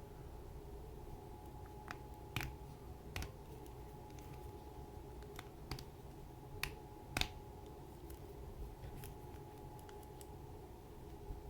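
Small plastic action figure handled and posed, giving about eight sharp, irregular clicks and taps as its plastic parts and joints are moved, over a faint steady hum.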